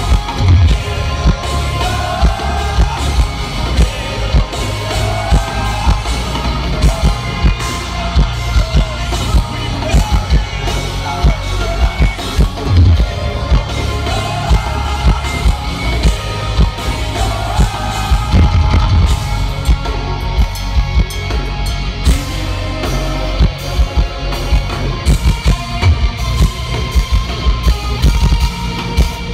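Live hard rock band playing at full volume: distorted electric guitars over a pounding drum kit, with a sung vocal line riding on top.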